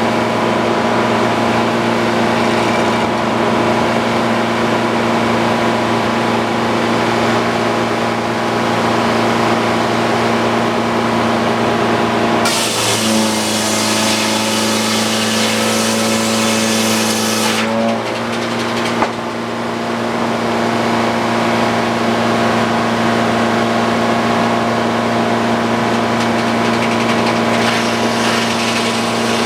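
Frick OO circular sawmill running steadily, its power unit and spinning blade making a constant hum. Near the middle a loud hiss lasting about five seconds as the blade cuts through the ash log, then a brief dip and a click as the cut ends.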